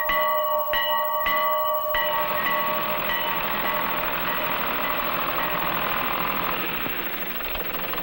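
A large farm bell on a post, rung by hand: three strokes roughly two-thirds of a second apart, its ringing dying away about two seconds in. Then an International tractor's engine running steadily.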